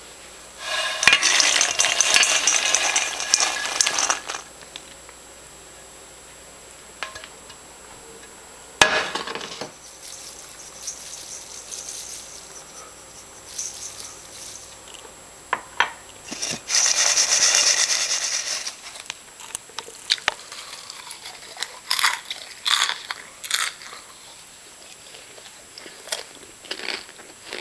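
Popped popcorn poured out of a pot into a metal bowl: a rattling rush a second in, and a second one about two-thirds of the way through. Short, sharp crunches and clicks near the end.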